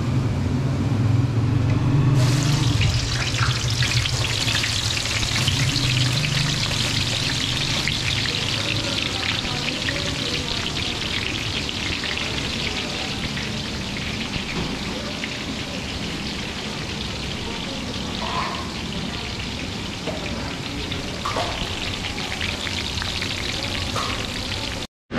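Sliced red onions hit hot oil in a large karahi and start sizzling about two seconds in: a loud, steady frying hiss that slowly eases off. A low hum is heard before the onions go in.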